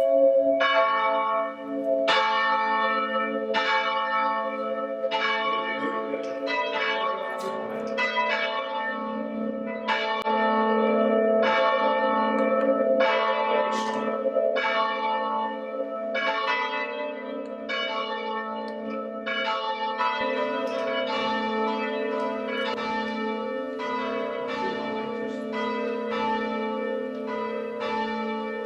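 Three church bells rung by rope in turn, struck one after another at a steady pace, each stroke ringing on under the next. The bells are swung only low, kept just striking rather than rung up to full circle.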